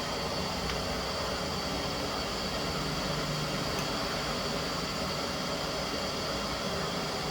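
Gas stove burner running with a steady hiss.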